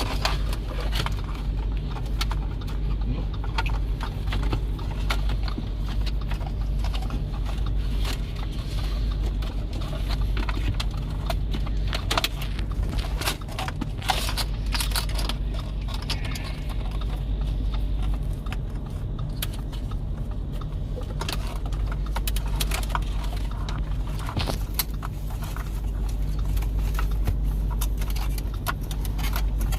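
Cables and the radio head unit being pushed back into a car dashboard: repeated plastic clicks, knocks and scrapes with some jangling, over a steady low hum.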